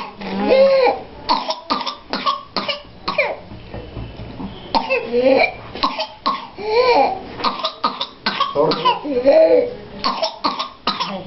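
A person coughing in fits of rapid, harsh coughs, one run after another, with long pitched sounds that rise and fall between the runs: the paroxysmal cough of whooping cough (pertussis).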